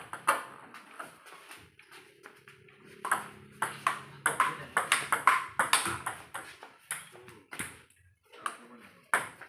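Table tennis rally: the plastic ball clicking sharply off the paddles and the tabletop, a quick irregular run of ticks that thins out near the end.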